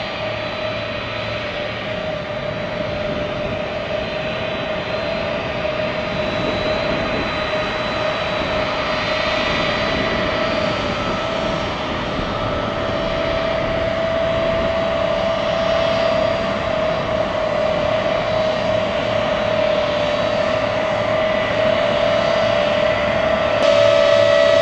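Lockheed C-5 Galaxy's turbofan engines running while the aircraft taxis: a steady whine over a broad rush of engine noise, growing slowly louder.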